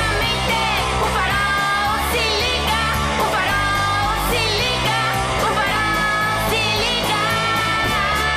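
Pop song: a voice singing a melody with wavering held notes over a steady bass line and beat.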